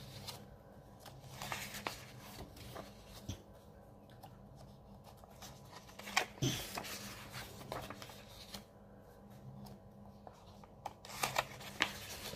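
Paper pages of a printed cross-stitch chart being handled and turned: scattered soft rustles and taps, a few louder ones about halfway and near the end, over a faint steady hum.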